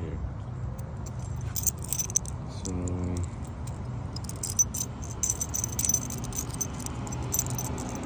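Light metallic clicking and jingling of a new car-battery terminal clamp and its loose bolts and nuts, handled and turned over in the fingers. The clicks come in quick irregular runs, starting about a second and a half in.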